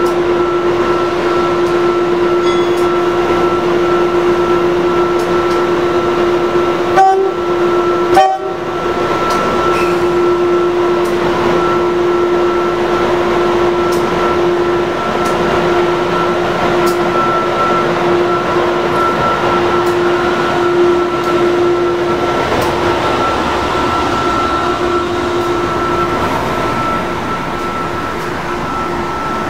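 Amtrak AEM-7 electric locomotive moving along the platform, then its passenger coaches rolling past, with a steady two-note whine from the locomotive over the running rumble. Two sharp knocks about seven and eight seconds in.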